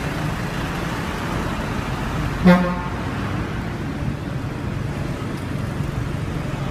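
A vehicle horn gives one short toot about two and a half seconds in, over steady street traffic noise.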